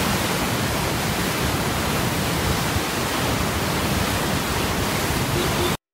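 Floodwater rushing and churning through open dam spillway gates, a steady loud rush of water that cuts off suddenly near the end.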